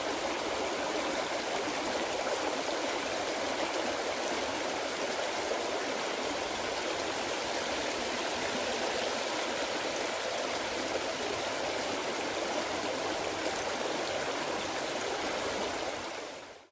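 Water of a stream running, a steady rushing and splashing that fades out near the end.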